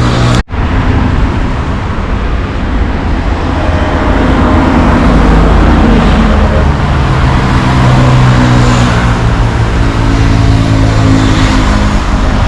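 Car engine and road noise while driving, with a short break about half a second in. The engine pitch climbs a few seconds in as the car speeds up, then holds a steady hum.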